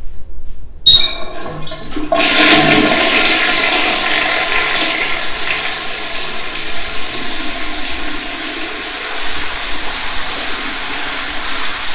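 Toilet flushed by hand-opening a gate valve on the brass water pipe above the bowl, with no tank or lever. A brief sharp sound comes from the valve about a second in, and then from about two seconds in, water rushes steadily into the bowl, easing a little near the end.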